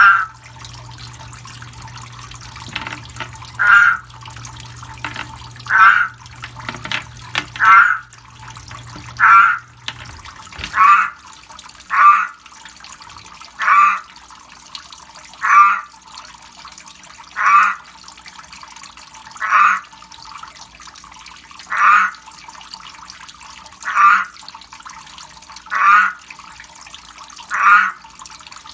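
Male pacman frog giving its breeding call: a short, pulsed croak repeated about every two seconds. Under it, the steady patter of water raining from a spray bar onto the frogs and mesh. A low hum stops about ten seconds in.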